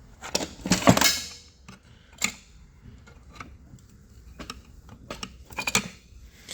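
Metal parts of a failed, broken engine knocking and clinking together as they are handled, with the loudest clanks about a second in, a single knock a second later, a few light clicks in between and a small cluster of knocks near the end.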